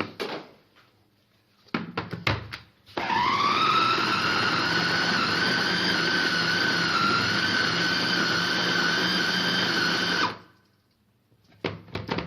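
Electric food grinder blending a paste of boiled figs, garlic and olive oil: its motor spins up about three seconds in with a quickly rising whine, runs steadily for about seven seconds and stops. A few knocks from handling the machine come before it.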